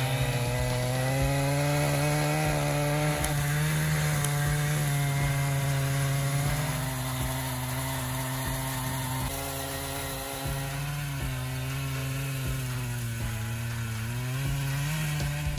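Large two-stroke chainsaw with a long bar, mounted in a chainsaw mill, running steadily under load as it rips a thin slab through a big tree stump. Its engine pitch sags and recovers a little as the cut loads it.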